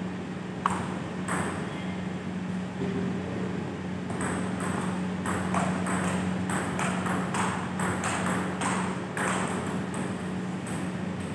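Table tennis ball being hit by bats and bouncing on the table. A few single clicks come in the first seconds, then a quick rally of about three clicks a second from about four seconds in until about nine.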